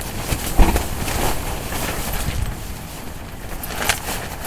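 Strong storm wind buffeting a nylon tent: the fabric flaps and snaps while the wind rumbles on the microphone. A sharp thump about half a second in is the loudest sound, and another crisp snap comes near the end.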